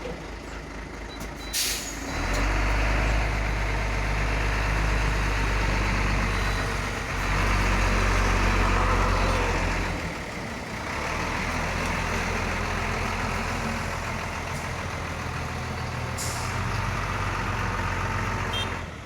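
Diesel engine of a loaded Hino tronton truck running under load as it creeps forward. It pulls harder about 2 s in and harder still from about 7 s, eases off around 10 s, then runs on. Short air hisses come about 1.5 s in and again near 16 s.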